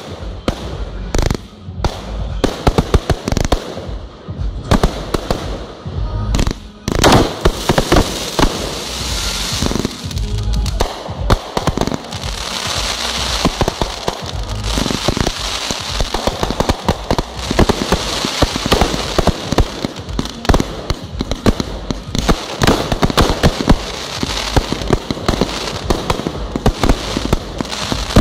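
Aerial fireworks shells launching and bursting in quick succession, one bang after another. From about seven seconds in, the bangs come thicker over a continuous crackling from the glittering crackle stars.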